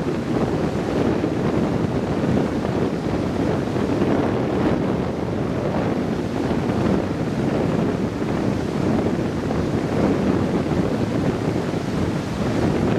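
Heavy storm surf breaking and washing up the beach in a steady, dense rush that swells and eases every few seconds, mixed with wind buffeting the microphone.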